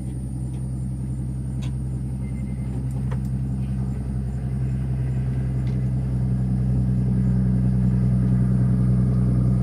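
An engine idling with a steady low hum that slowly grows louder, with a few faint clicks over it.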